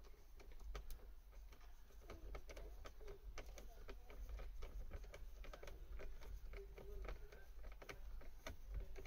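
Light, irregular clicking of a hand screwdriver and plastic trim as screws are driven into a car's door panel by hand, over a low steady rumble.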